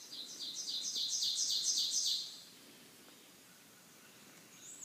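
A songbird singing a run of repeated high two-part notes, about three or four a second, growing louder and stopping a little past halfway; a higher, thinner series of notes starts near the end.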